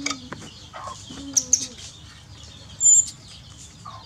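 Birds chirping with chickens clucking in the background. About three seconds in comes a short, loud, high-pitched chirp.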